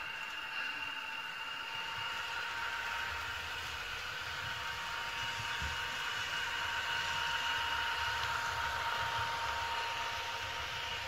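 Märklin V160 H0 model diesel locomotive running past with its sound decoder playing a diesel engine sound through its small speaker, over a steady high whine. The low rumble of its wheels and coaches on the track swells as the train passes and eases near the end.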